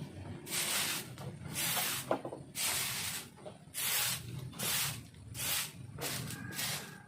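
Repeated swishing, scraping strokes, about one a second, over a steady low rumble.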